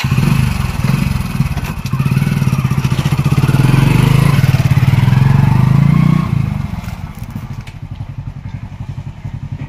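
Motorcycle engine running with an even, rapid firing beat as the bike pulls away. It is loud for the first six seconds or so, then drops and carries on quieter as the bike rides off.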